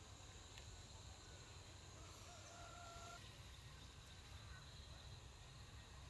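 Near silence: faint rural outdoor ambience, with a low rumble, a faint steady high-pitched hum, and a faint bird call about two seconds in.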